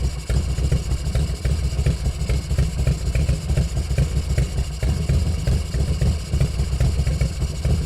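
Harley-Davidson Road King's V-twin engine idling steadily with an even, lumpy pulse.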